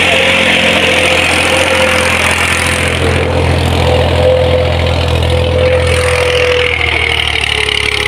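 Massey Ferguson tractor's diesel engine running steadily as it pulls a cultivator through ploughed soil, a constant low drone.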